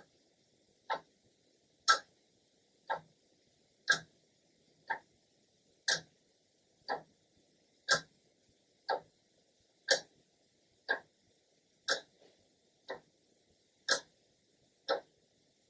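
Clock second hand ticking once a second, the ticks alternating louder and softer in a tick-tock pattern.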